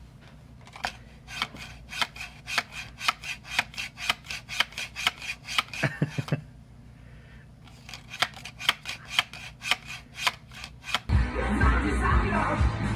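A rapid run of sharp taps or clicks, about four to five a second, stopping for a moment near the middle and then starting again. Music begins near the end.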